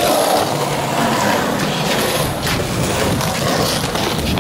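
Skateboard wheels rolling over pavement: a steady rumble with a few sharp clicks over cracks and grit.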